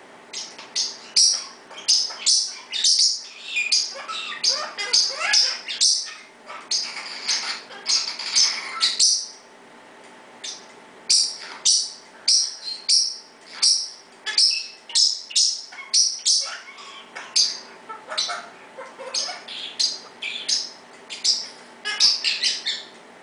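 Blue parrotlet giving loud, rapid, high-pitched chirps in quick repeated bursts, with a short lull about halfway through. A Pionus parrot calls in the background. Laughing sounds mimicked by the parrots come in the second half.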